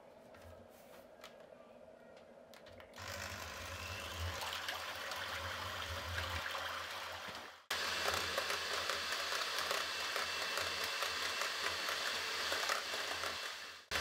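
Russell Hobbs electric hand mixer whipping cream in a glass bowl: its motor hums steadily as the beaters churn through the cream. It starts about three seconds in after a quiet spell, and cuts out briefly past the middle before coming back louder.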